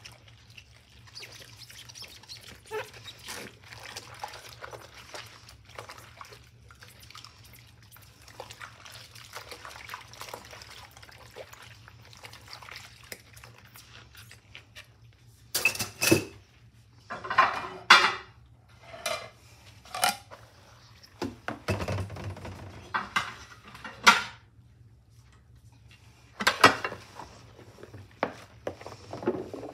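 Rubber-gloved hands washing a drinking glass in a stainless steel sink of soapy water. For the first half it is a soft, steady crackle of suds and rubbing. From about halfway on come a series of louder splashes and sloshes as the glass and then a plate are moved through the water.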